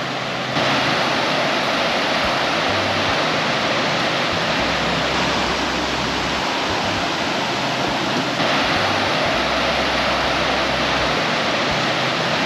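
Loud, steady rush of floodwater pouring through a water-wheel installation on a river running high, with a step up in level about half a second in.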